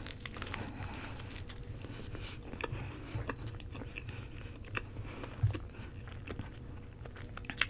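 Close-miked chewing of a roti, with scattered small wet mouth clicks and smacks.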